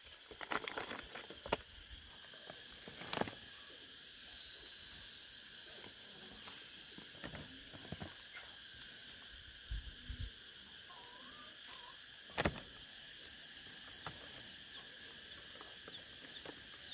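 Steady outdoor insect chorus, with scattered light knocks, taps and rustles. The sharpest knock comes about twelve and a half seconds in.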